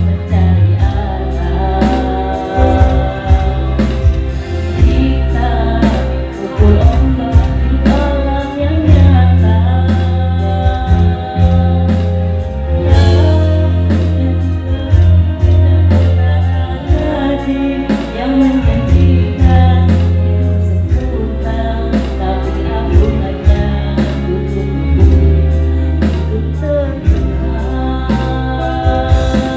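Live band playing a song with a singer: electronic keyboard, electric guitar, bass and drums with a steady beat.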